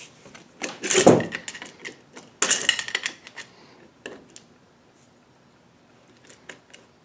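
Metal clicking and scraping as a steel pry tool works at the cage of a chewed-up pinion bearing on a rear-axle pinion gear, breaking the cage so the rollers come loose. A cluster of sharp clicks comes about one second in and a busier run around two and a half to three seconds in, then only a few scattered ticks.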